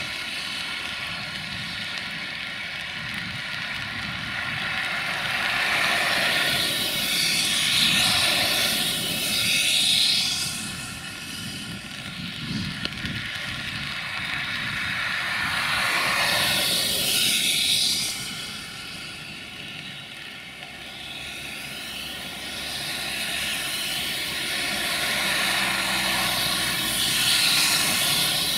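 Multirotor drone's propellers whining steadily, several fixed tones at once, with rushing noise that swells and fades three times.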